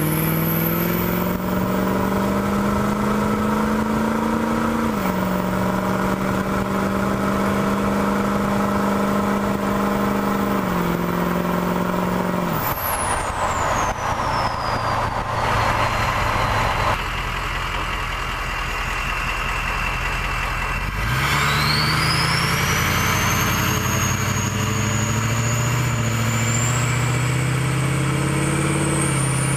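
2003 6.0L Power Stroke V8 turbodiesel with a straight-piped exhaust running, its turbocharger whistling. About halfway through, the engine drops off and the whistle falls steeply in pitch as the turbo spools down. A few seconds later it pulls up again with a whistle that rises sharply as the turbo spools up.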